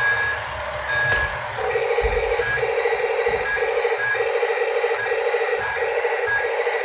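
Repeated electronic beeping, about two beeps a second, starting a little after the first second and continuing steadily.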